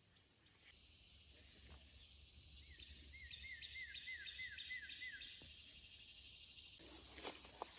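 Faint outdoor ambience: a steady high insect drone, with a bird calling a quick run of about eight repeated slurred notes in the middle.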